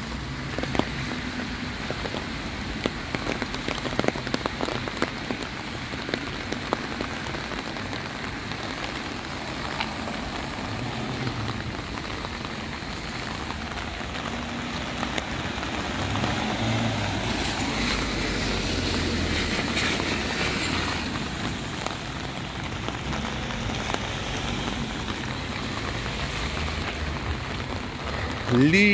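Heavy rain pouring onto wet pavement and grass, a steady hiss with many close drops ticking. A bit past the middle, the hiss of car tyres on the wet road swells for a few seconds and fades.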